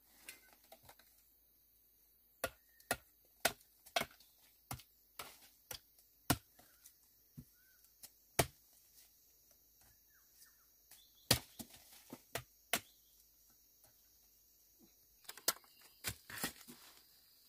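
Repeated sharp chopping knocks, about two a second for several seconds, then pausing and resuming in short irregular clusters.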